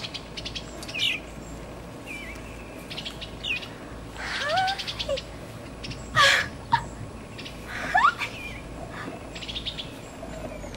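Eastern bluebirds calling in agitation around a just-fledged chick: a series of short chirps, chattering notes and rising calls, with a few louder calls in the second half.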